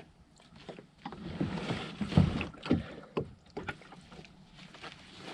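Kayak on the move: paddle splashing and swishing in the water, with a few knocks, the loudest just over two seconds in.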